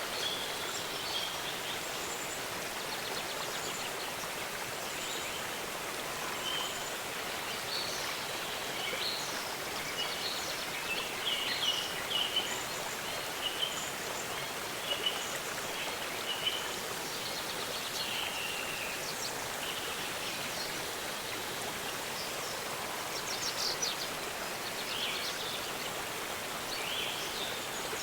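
Waterfall running as a steady rushing hiss, with birds chirping in short scattered calls throughout.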